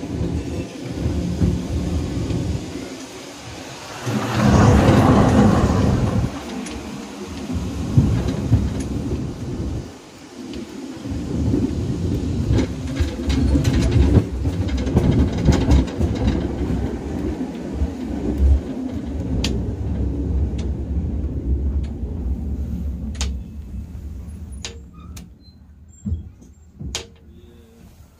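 Low, rumbling run of a museum tram along its track, with a louder rush of noise about four seconds in. The rumble dies away near the end, leaving a few sharp clicks.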